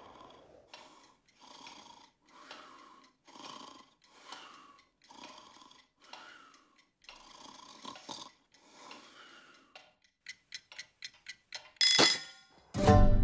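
Slow, regular breathing sound effects of a sleeping cartoon farmer, about one a second, followed by a quickening run of sharp clicks. Then a bell alarm clock rings loudly and is cut off after about half a second as a hand slaps it off, and music starts just before the end.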